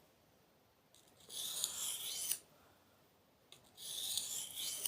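Knife blade drawn across a sharpener in two long strokes, each a high metallic scrape lasting about a second.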